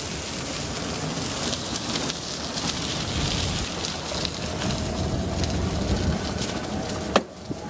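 Velomobile rolling along an asphalt bike path: a steady crackling road and tyre noise with rattles from the shell. A single sharp click comes about seven seconds in, and faint squeaks near the end.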